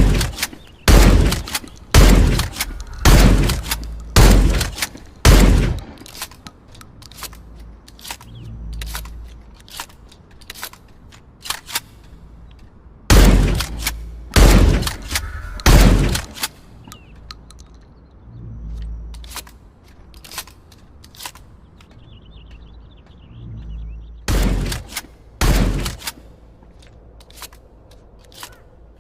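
Trench shotgun firing: loud single shots about a second apart, in a run of six, then three, then three, each with a short low rumble after it. Fainter clicks and knocks fill the gaps between the runs.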